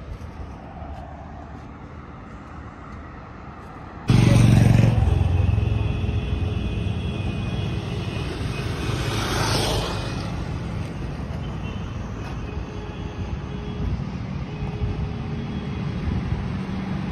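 Motorcycle engine passing on an open road, swelling and fading about nine to ten seconds in, over a steady low traffic rumble that starts suddenly about four seconds in.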